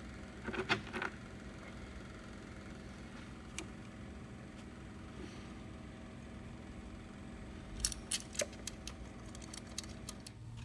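Scattered light clicks and taps of plastic ignition coils being pushed down and seated onto the spark plugs, with a quick run of clicks about eight seconds in, over a steady low hum.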